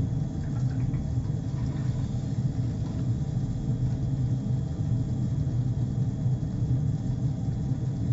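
Atmos wood-gasification boiler running: a steady low rumble of its fan and draft.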